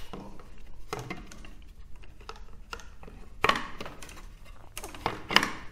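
Scattered light clicks and knocks of hard plastic and wood being handled: a clear polycarbonate slide plate and small wooden parts being shifted and set on a mahogany mortising jig. The loudest knocks come about halfway through and near the end.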